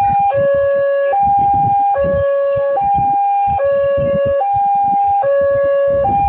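Two-tone hi-lo siren, a high note and a lower note alternating evenly at roughly 0.8 s each, with an uneven low rumble underneath.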